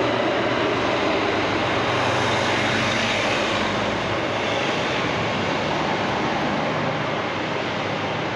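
Steady city street traffic noise, with the engine of a large vehicle, a truck, running as it passes along the street, a little louder a couple of seconds in.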